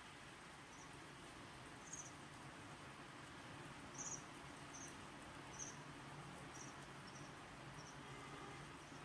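Faint, steady rain hiss with about ten short, high-pitched chirps scattered irregularly through it.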